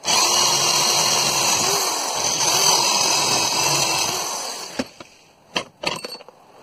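Corded electric drill boring through a metal bracket clamped in a vise, running at speed with a steady whine for about four seconds, then winding down. A few sharp knocks follow near the end.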